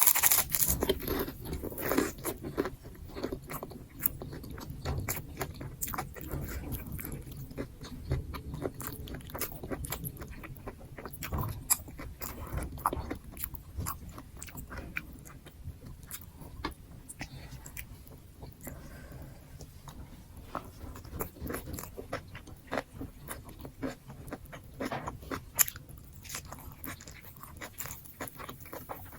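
A person chewing and crunching mouthfuls of nasi gila, with many irregular sharp crunches and mouth clicks.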